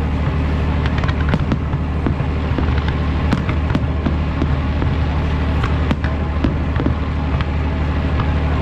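Fireworks display: a dense, continuous run of sharp bangs and crackling bursts over a steady low rumble.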